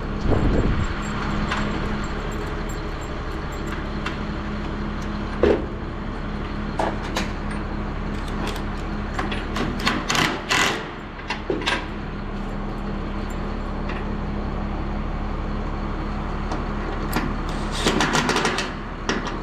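Cordless impact drivers rattling in several short bursts as they back out bolts holding a grille panel on heavy equipment, the longest bursts about ten seconds in and near the end, over a steady low hum.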